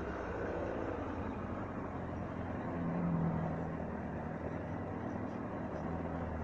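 Motorcycle engines running at low speed on a cobbled lane, with a brief rise in revs about three seconds in.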